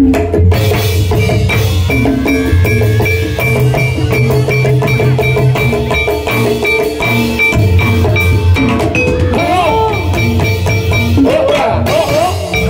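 Live Javanese gamelan music for a jathilan trance dance: metallophones ring a steady, evenly repeated high beat over drums.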